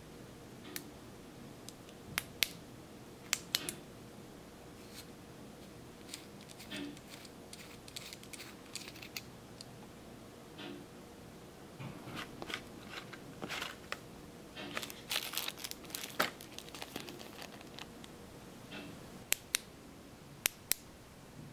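Handling noise of a metal pen-size flashlight being turned over, unscrewed and handled: scattered sharp clicks and light metal scraping, busiest in the middle, with three sharp clicks near the end.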